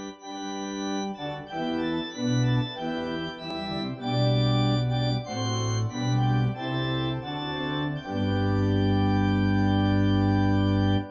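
Organ playing a hymn-tune introduction: sustained chords over a moving bass line, closing on a long held chord for the last few seconds.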